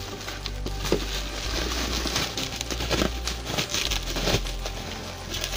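Packing material being handled and pulled open: crinkling and rustling with scattered crackles and clicks.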